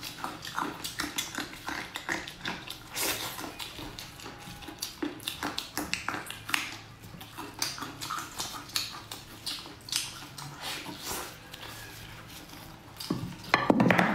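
Close-up eating sounds of a person chewing glazed pork ribs: a steady run of wet lip smacks and small clicks, with a louder, denser burst near the end as she bites and tears at the meat.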